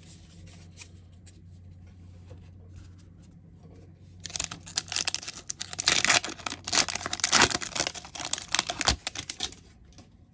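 Foil trading-card booster pack torn open and crinkled by hand, starting about four seconds in and going on for about five seconds in a run of loud crackles.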